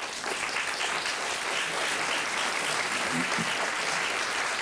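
Studio audience applauding, the clapping swelling in at the start and holding steady.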